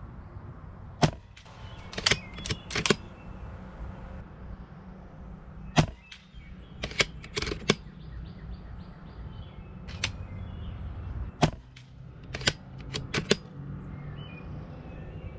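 Daystate Alpha Wolf .177 PCP air rifle firing several shots a few seconds apart, each a sharp single crack. Between the shots come quick clusters of clicks from the action being cycled, and wind rumbles on the microphone throughout.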